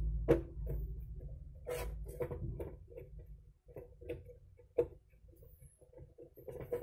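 Irregular small clicks and taps from a screwdriver and the plastic housing of a CCTV bullet camera being handled while its screws are put back, over a low hum that stops about halfway through.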